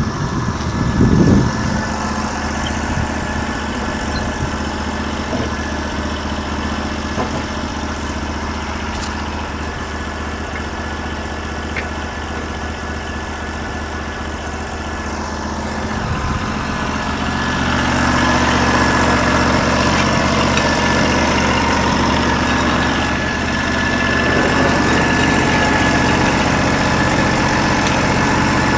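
16 hp gasoline engine of a Norwood LumberMate LM29 portable bandsaw mill running steadily, with a thump about a second in. From about 17 seconds in it grows louder and fuller, with a steady high whine added.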